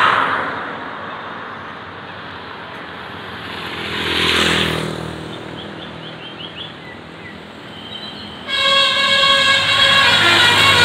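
Traffic passing with two swells of road noise, then about two-thirds of the way in a tour bus's 'telolet' Basuri multi-tone air horn starts loudly, playing a stepping multi-note tune.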